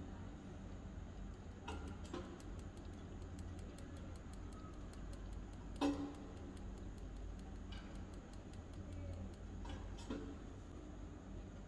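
Light clicks and taps as sugar is sprinkled from a small glass bowl over bread in a miniature iron pan, the sharpest about six seconds in, over faint fast ticking and a low steady hum.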